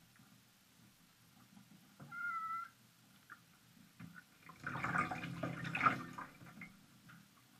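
A wet cat meows once, briefly, about two seconds in. Then comes a louder, longer rustle of a towel as the cat is wrapped and lifted out of the bathtub.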